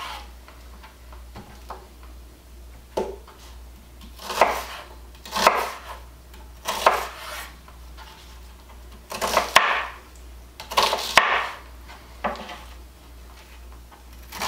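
Chef's knife cutting a sweet onion on a bamboo cutting board, each cut ending in a knock of the blade on the wood, in irregular strokes about one to two seconds apart.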